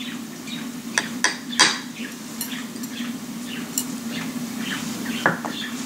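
A small ceramic bowl clinking and tapping against a glass jug as cinnamon powder is shaken out of it: a few sharp clinks about a second in, then lighter taps, over a steady low hum.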